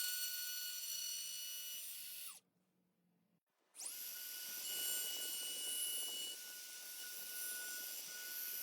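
Wood router motor running at high speed with a high-pitched whine. It stops about two and a half seconds in and, after a second of quiet, starts again and runs on.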